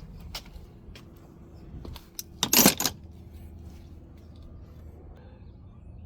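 Small metal parts clattering and jingling briefly about two and a half seconds in, with a few light clicks before it, over a low steady hum.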